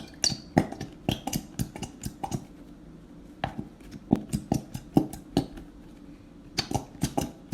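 Irregular light knocks and clinks as a glue bottle is tapped and emptied into a bowl, clear glue being worked out of it.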